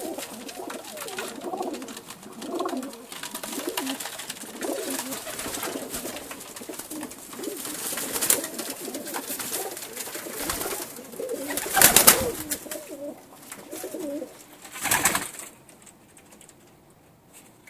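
Pakistani highflyer pigeons cooing in a small loft, with short loud bursts of wing flapping, the loudest about twelve seconds in and another about three seconds later.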